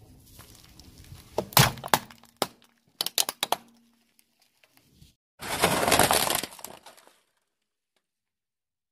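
A car tyre crushing brittle objects on concrete. First comes a string of sharp cracks and snaps as a plate under a pile of banknotes breaks. About five and a half seconds in comes a louder crunching, shattering burst of nearly two seconds.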